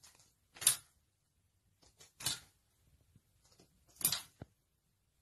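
Curtain rustling as a cat paws and tugs at it: three short rustles about a second and a half apart, with a small click just after the last.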